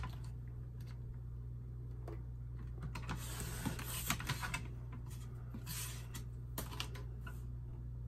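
Sliding paper trimmer cutting laminated cards: a few short scraping swishes of the blade carriage and the plastic-coated card, mostly after about three seconds in, over a steady low hum.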